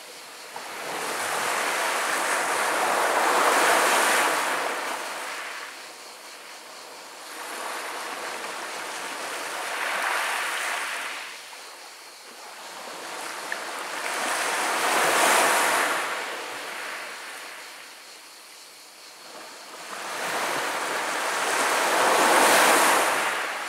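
Small sea waves washing up a pebble beach and drawing back over the stones. Four swells of rushing water about six seconds apart, each rising and fading, the last one breaking near the end.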